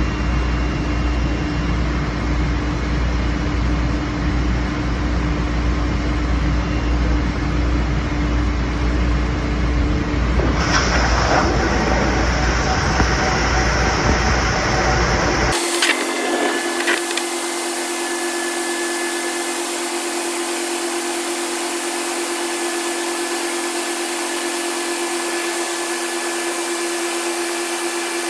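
ANCA FX7 CNC tool grinder running with a steady machine hum and tone. About ten seconds in, a hiss of coolant spray and grinding is added as the wheel cuts flutes into the tool blank. About halfway through, the sound changes abruptly to a thinner, brighter hiss with a steady whine.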